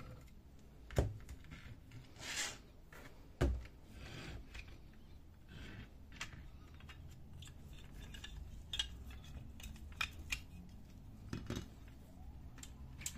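Hard plastic and metal parts of an HP Color LaserJet CP3525 fuser unit clicking and knocking as a screw is taken out and the side cover assembly is worked free and handled. Two sharp knocks come about one and three and a half seconds in, then scattered lighter clicks.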